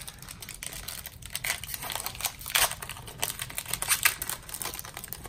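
A foil Pokémon booster pack wrapper is torn open and crinkled by hand while the cards are pulled out: an irregular run of sharp crackles.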